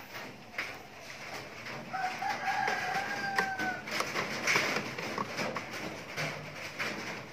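A rooster crows once, a single long call about two seconds in, over scattered clicks and scrapes of a screwdriver working the terminal screws of circuit breakers in a metal panel board.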